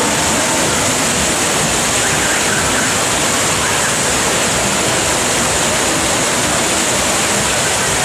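Steady rush of water pouring down a raft ride's flume and churning in the splash pool.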